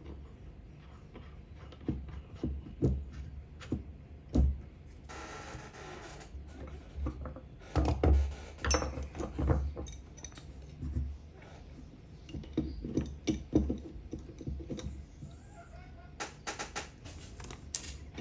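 Small metal carburetor parts being handled and fitted by hand: scattered clicks, taps and knocks, with a brief rubbing sound about five seconds in and a run of louder knocks a few seconds later.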